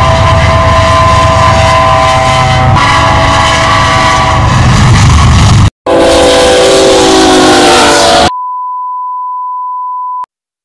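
Diesel freight locomotive's air horn sounding a held chord over the engine rumble as the train passes. After an abrupt cut, a train horn sounds again with its pitch sliding down as it goes by. It then cuts to a steady test-tone beep near 1 kHz for about two seconds, which stops suddenly.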